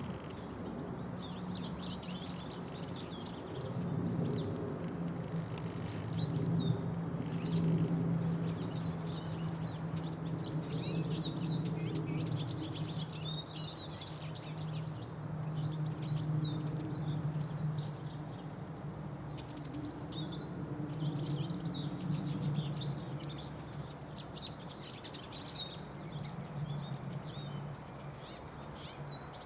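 Small birds chirping and twittering in a dense, continuous chatter of quick high notes, over a steady low hum.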